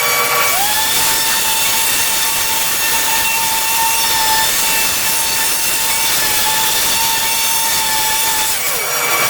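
CNC router cutting out a sign, the spindle and bit chewing steadily through the material. A steady whine from the machine rises in pitch about half a second in, holds through the pass, and drops away near the end.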